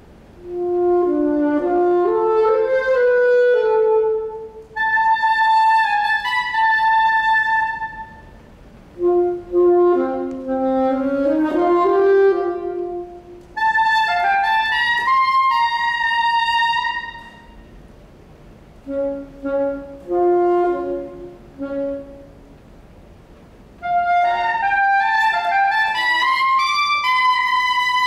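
Solo saxophone playing unaccompanied phrases: quick runs that climb to long held high notes, with short pauses between phrases and a passage of short detached notes about two thirds of the way through.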